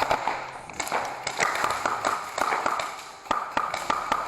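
Airsoft guns firing in an indoor arena: a string of irregular sharp cracks and taps, several a second, some close together in quick clusters.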